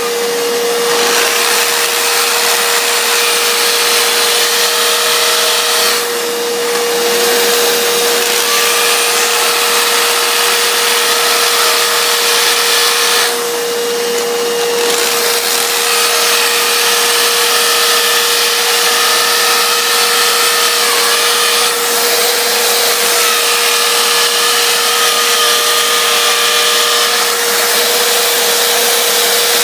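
An electric motor running continuously with a steady whine, from a power tool or a vacuum cleaner, with brief noisier surges about six seconds in and again about fourteen seconds in.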